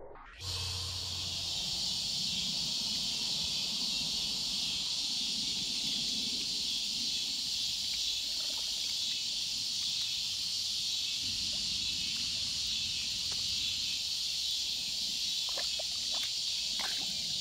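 Steady, high-pitched chorus of insects, with a few faint clicks near the end.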